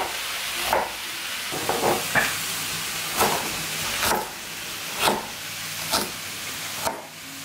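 A chef's knife chopping red onion on a plastic chopping board, a sharp knock about once a second, over a steady sizzle from meat and peppers frying in a pan.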